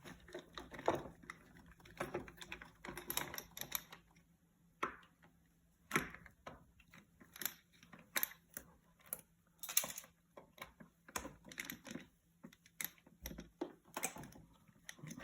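Irregular light clicks and taps of a screwdriver working the screws out of an LG refrigerator's ice maker.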